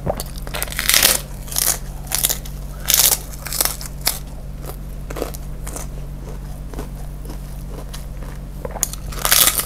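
Kerupuk crackers being bitten and chewed: sharp crunches come about every half second for the first few seconds, then sparser chewing, with a loud burst of crunching near the end.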